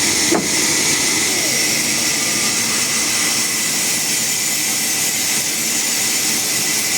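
Sawmill machinery running with a steady, loud hissing noise. There is a brief falling squeak less than half a second in.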